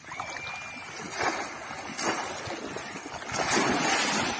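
Shallow floodwater splashing and sloshing as a boy wades and lunges through it, chasing a catfish by hand. The splashing swells in several surges and is loudest about three and a half to four seconds in.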